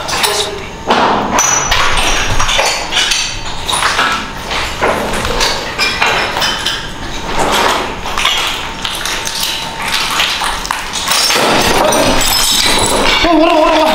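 Irregular knocks, taps and thuds, with a louder, steady stretch of scuffling movement in the last few seconds.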